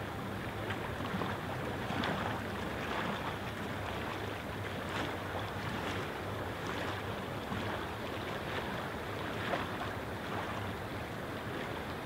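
A steady rushing noise with no rhythm or tone in it.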